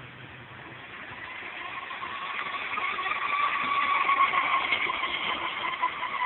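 Aquacraft UL-1 Superior RC boat's electric motor whining at a steady high pitch as the boat runs by, growing louder for a few seconds and then fading near the end.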